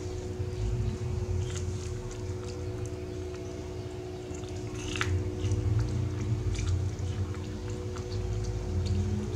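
Young macaque biting and chewing kernels off a cob of boiled corn: a run of small, irregular crunches and clicks, with one sharper click about five seconds in, over a steady low hum.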